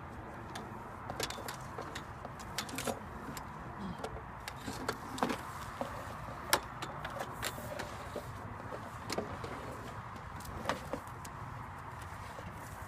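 Irregular clicks, clinks and light knocks of an ATOS VQ rigid-wing hang glider's frame tubes and fittings being handled as the wing is broken down.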